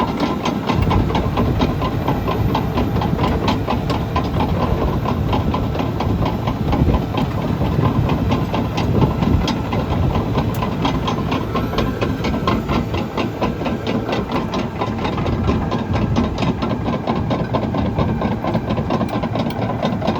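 Caterpillar D6N LGP bulldozer's diesel engine running steadily as the machine pushes dirt and concrete, with a fast, even clatter.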